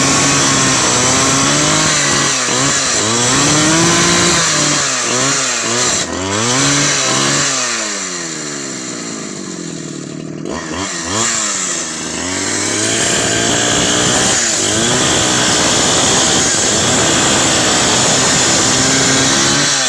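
Two-stroke chainsaw engine revved up and down over and over, its pitch rising and falling; it drops to a lower, quieter speed about eight seconds in, then revs hard again.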